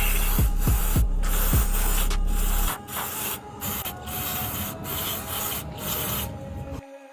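Aerosol cleaner hissing in repeated bursts with brief breaks as a scooter's throttle body is sprayed clean of dirt; the spraying stops near the end.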